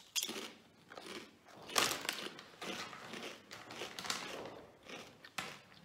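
A person biting into and chewing crunchy barbecue-flavoured snack chips: a run of crisp crunches, about one or two a second.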